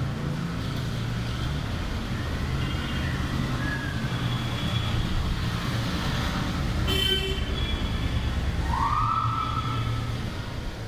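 Rainy street ambience: a steady traffic rumble under a hiss of rain. A vehicle horn sounds briefly about seven seconds in, and a short rising tone follows near nine seconds.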